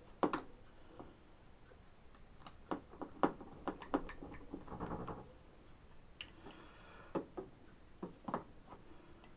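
Irregular small clicks and taps, with a short scrape about halfway through, as a hand tool works a plug loose from a display case.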